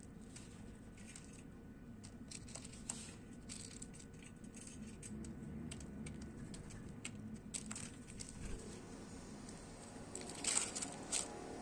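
Small birds pecking and cracking seeds: scattered light taps and crackles, with a quick run of louder clicks about ten and a half seconds in.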